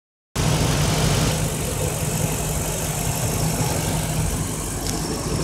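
The 5.0 V8 engine of a 2001 Mercury Mountaineer idling steadily, heard close up in the open engine bay.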